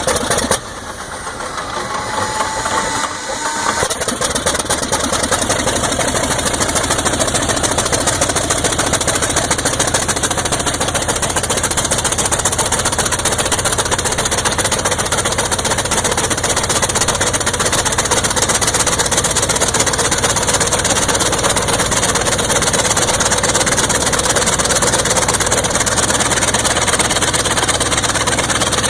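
Large WW2-era piston aircraft engine cold-starting: a whine during cranking for a few seconds, then the engine catches about four seconds in and runs steadily and loudly.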